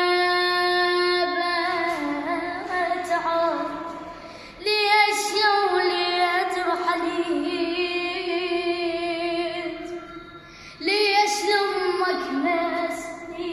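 Solo high voice chanting an unaccompanied Arabic religious lament in three long phrases. Each opens on a held note, then winds down in ornamented turns; new phrases come in about five seconds in and again near the end.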